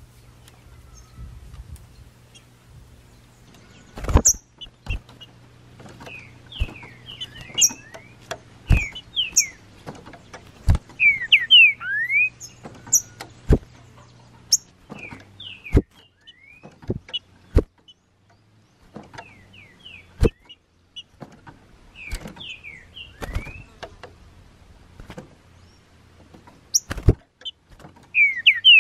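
Green-winged saltator (trinca-ferro) singing: short phrases of clear whistled notes sliding up and down, repeated every few seconds. Sharp knocks are scattered among the phrases, with a faint low hum that stops about halfway.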